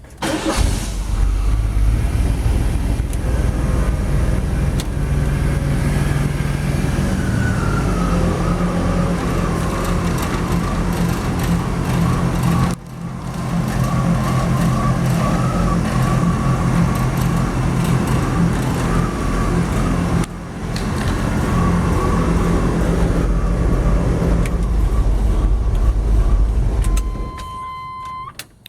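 Chevrolet S10 pickup under way: steady engine and road noise, dipping briefly twice. A short steady beep sounds near the end.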